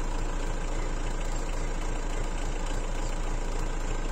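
Combine harvester's engine and machinery running steadily, a constant drone with a strong low hum, heard from inside the cab.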